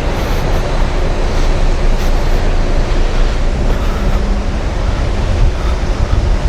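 Loud, steady rushing noise with a deep, fluttering rumble aboard a ferry crossing rough seas in a gale.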